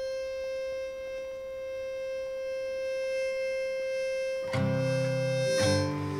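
Instrumental folk music intro: a single held note swells slowly, then about four and a half seconds in, louder harmonica chords come in.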